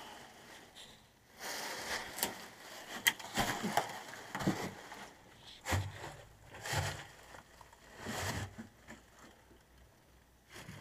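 Footsteps crunching and scraping on loose stone rubble and grit, irregular, some steps with a low thud, stopping about a second before the end.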